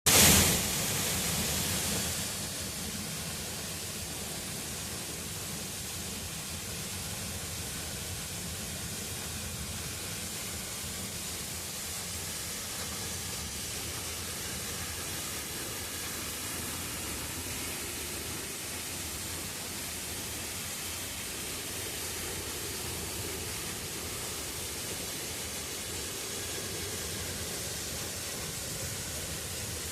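Waterfall rushing: a steady hiss of falling water, a little louder for the first two seconds.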